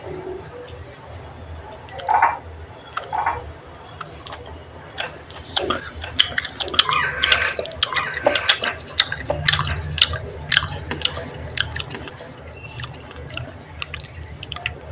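Moist clicks and squishes of fingers handling spiced raw guava slices on a plate, coming thickest from about five to eleven seconds in.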